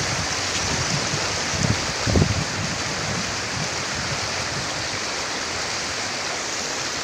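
Steady rushing water, with a couple of brief low bumps about two seconds in.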